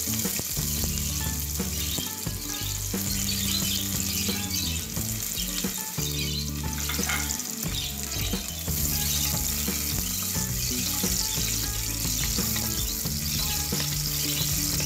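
Sliced onions sizzling steadily as they fry in hot oil in a pressure cooker. A wooden spoon stirs them near the end.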